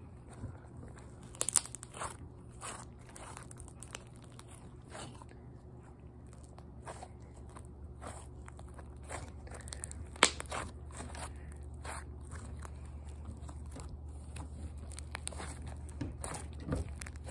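Hands squishing, poking and pulling Elmer's Goo slime: irregular sticky clicks and crackles, with two sharper snaps, about a second and a half in and about ten seconds in.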